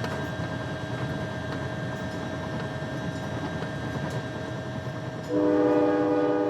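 Amtrak train passing with a steady rumble, a faint hum and a few light clicks; about five seconds in its horn sounds, a loud chord of several notes held through the end.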